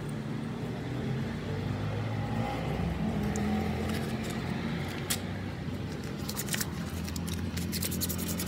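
An engine running steadily, a low hum, with light scratchy clicks near the end as a rag wipes a petrol-wet motorcycle piston.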